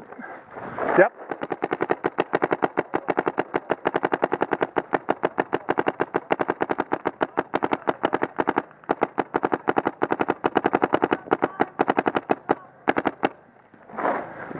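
Paintball marker firing rapid strings of shots, a quick run of sharp pops with a short break about nine seconds in and a last few shots near the end.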